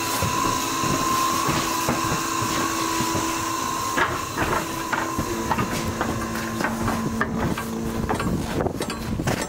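Steady hum of lab equipment. About four seconds in, a door's latch clicks as it opens. Then footsteps on rocky gravel with wind on the microphone.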